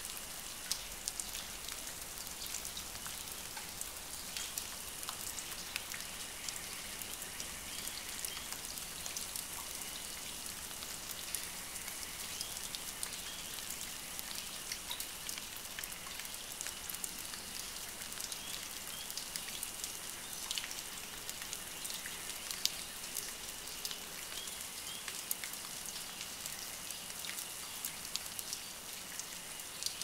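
Water dripping and pattering after rain: many scattered drops ticking onto leaves and surfaces over a steady soft hiss.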